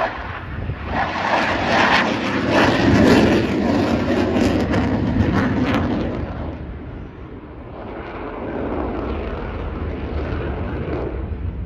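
Jet noise from a Eurofighter Typhoon's twin EJ200 turbofan engines as it flies past overhead: a loud rush that is strongest over the first six seconds, dips about seven seconds in, then builds again.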